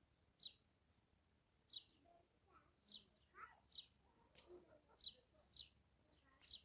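A bird calling faintly, repeating short high chirps that drop in pitch, roughly one a second.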